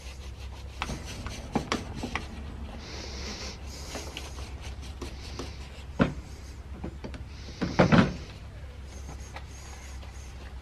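Paper towel rustling and crinkling as small oily metal parts of a chainsaw's recoil starter are wiped clean, with light clicks and taps of parts and tools on a workbench. There is a sharper knock about six seconds in, and a louder burst of rustling and knocks near eight seconds.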